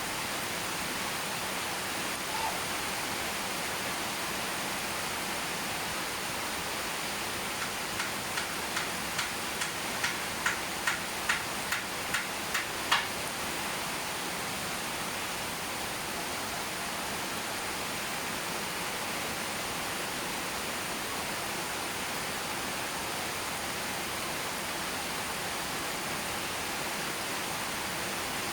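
Steady hiss of falling rain. About 8 seconds in, a run of about a dozen sharp ticks, two or three a second, grows louder and ends with the loudest tick about 13 seconds in.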